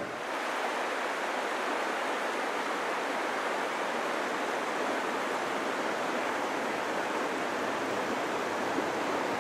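Steady rush of river water, an even hiss with little bass and no let-up.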